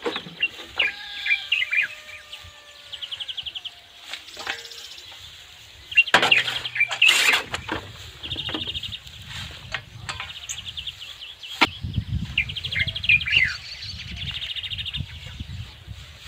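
Small birds chirping and trilling repeatedly. A loud burst of noise comes about six seconds in, and after it a low rumble of wind on the microphone.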